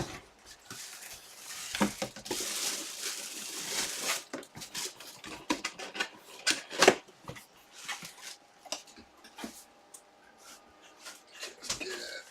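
Cardboard box and packaging being opened and handled by hand: scattered clicks, scrapes and crinkling.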